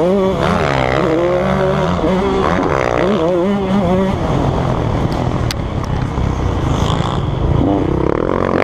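KTM 150 SX two-stroke single-cylinder motocross engine revving hard and shifting, its pitch climbing and dropping in steps. About four seconds in it drops off throttle to a rougher, lower running with a few sharp clicks, then revs up again near the end.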